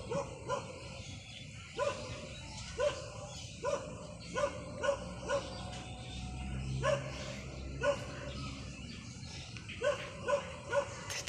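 An animal calling in about a dozen short, irregularly spaced calls, each rising and falling quickly in pitch.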